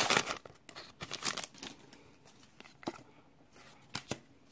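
Foil booster-pack wrapper crinkling as it is handled, dense at first and then dying down, followed by a few light clicks from trading cards being handled.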